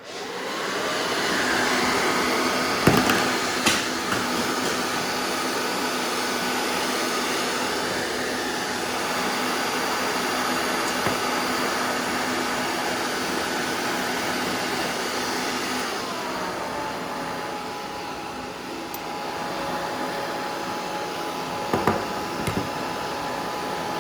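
Hair dryer on high heat switched on and spinning up, then running as a steady rush of air with a faint whine that drops to a lower pitch about two-thirds of the way through. A few short clicks and knocks come from handling near the start and near the end.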